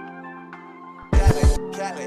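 Hip hop music: soft sustained keyboard tones, then about a second in a beat kicks in with heavy bass hits and bright percussion.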